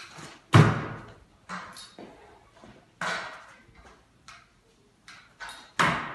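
Stunt kick scooter knocking and clattering on a hard floor as it is ridden: a series of sharp bangs at irregular intervals, the loudest about half a second in, each with a short echo in a large hall.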